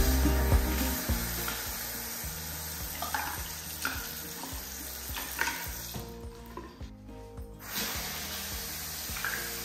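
Bathroom sink faucet running into the basin, the stream splashing as a microfibre cloth is rinsed under it and rubbed around the sink. The water noise drops away for a moment a little past the middle.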